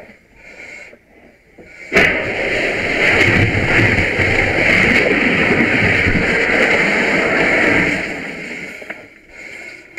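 A fire hose nozzle snaps open about two seconds in, and a loud, steady rush of water spray follows for about six seconds before it tapers off.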